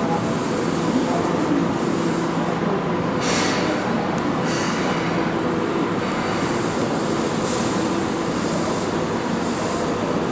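Keihan 6000 series electric train pulling into the platform and slowing to a stop, its running gear and motors making a steady hum and rumble. Short hisses sound a few times along the way.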